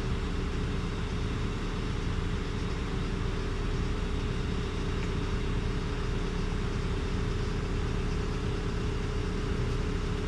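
An engine idling steadily, with an even low hum and no change in speed.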